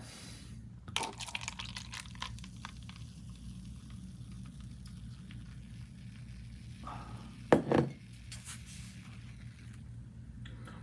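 Someone handling and sipping from an old found beer: small clicks and faint liquid sounds, then one short, louder sound about seven and a half seconds in, over a steady low hum.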